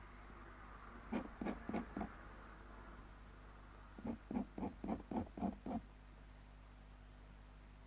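Ink pen nib scratching across paper in short hatching strokes: four strokes about a second in, then a quicker run of about eight about four seconds in, over a low steady hum.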